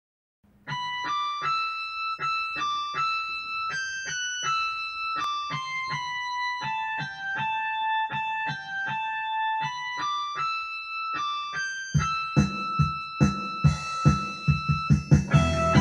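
Electronic keyboard playing a melody note by note at a steady pace in a bright electric-piano tone. About twelve seconds in, the sound fills out with low bass notes and a regular beat under the melody.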